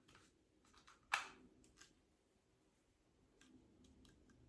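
Faint handling noise of a plastic facial cleansing brush and its packaging: a few small clicks, one sharper click about a second in, otherwise near silence.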